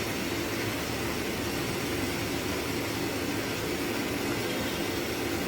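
Steady mechanical hum and hiss of machinery running, with no change or impacts.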